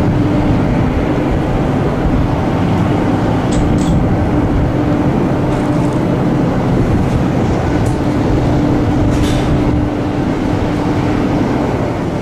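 Steady machinery hum of the cruise ship Mein Schiff 3, its engines and ventilation running evenly with a constant low tone.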